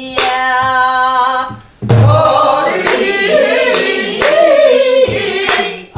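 Voices singing a Namdo folk song together over a buk barrel drum beaten with a wooden stick. It opens on one long held note; after a short break the singing goes on with deep drum beats about two seconds in and again about five seconds in, and sharp stick clicks between them.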